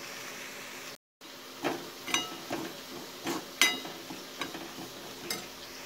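Semolina sizzling in hot oil in a metal kadhai as it is roasted, with a utensil scraping and clinking against the pan several times as it is stirred, each clink leaving a short metallic ring. The sound drops out briefly about a second in.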